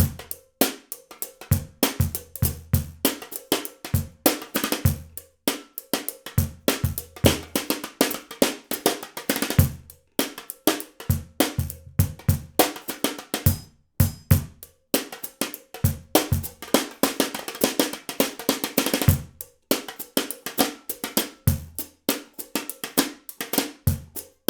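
Small street drum kit played in a groove: Pearl Short Fuse 10x4.5 snare, a De Gregorio Chanela cajon struck by a foot pedal as the bass drum, and Meinl HCS bronze 10" hi-hats. Short breaks fall between phrases about every four to five seconds.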